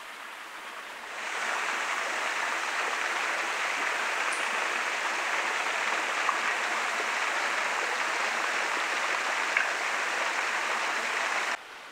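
Small waterfall spilling in thin streams down mossy rock ledges: a steady rush of falling, splashing water, fainter for about the first second, then louder and close, cutting off suddenly just before the end.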